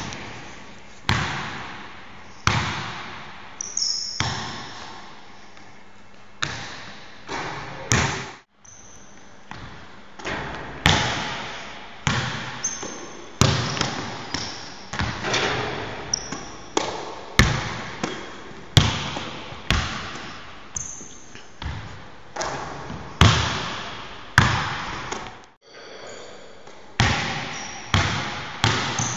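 Basketball bouncing on a gym court, single bounces at an uneven pace of roughly one a second, each ringing on in the echo of a large empty hall. Short high sneaker squeaks come now and then between bounces.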